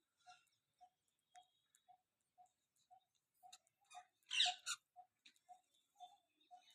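A clock ticking steadily, about two ticks a second. About four and a half seconds in, a parrot gives one short, loud, high chirp.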